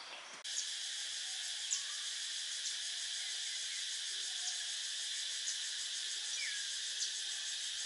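Steady, high-pitched insect chorus that starts suddenly about half a second in, with a few faint short bird calls over it.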